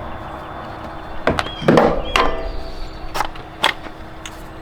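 Metal fold-out RV steps being handled and set against the truck's plywood wall: a few sharp knocks and clanks, the loudest about two seconds in, one ringing briefly like struck metal.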